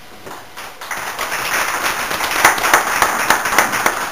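A roomful of people applauding, starting about half a second in and building to steady clapping within a second.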